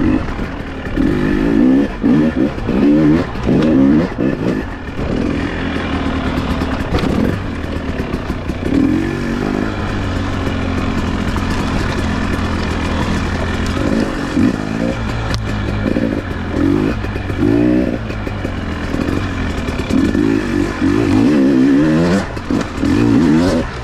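Off-road enduro motorcycle engine revving up and down in quick repeated surges, over the clatter of the ride. It settles into steadier running for a few seconds in the middle, then surges again near the end.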